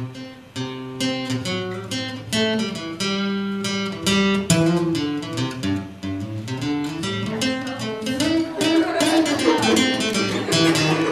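Jumbo acoustic guitar played solo: a tune of plucked single notes over bass notes, thickening into fuller strummed chords near the end.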